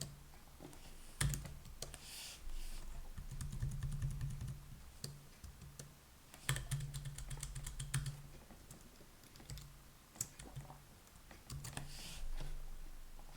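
Typing on a computer keyboard: runs of quick keystrokes, the busiest about three to five seconds in and again about six and a half to eight seconds in, over a low hum.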